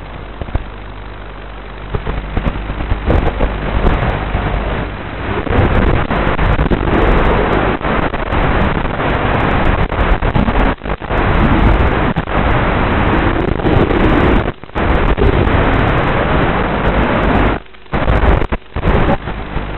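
Onboard sound of a 210-size FPV racing quadcopter in flight: electric motors and propellers whirring under heavy wind rush on the microphone. The pitch wavers up and down with the throttle, and the sound drops away sharply for a moment a few times.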